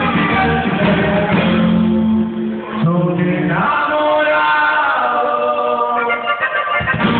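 Norteño group playing a corrido with singing; the bass drops out about two seconds in and comes back near the end.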